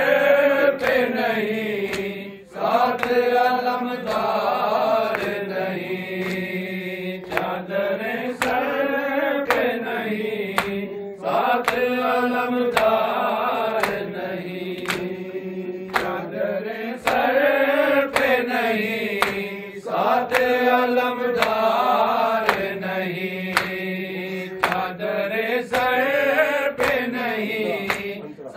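A group of men chanting an Urdu noha (lament) in unison, the melody rising and falling in repeating phrases of a few seconds each. Rhythmic hand slaps on the chest (matam) keep a steady beat under the singing.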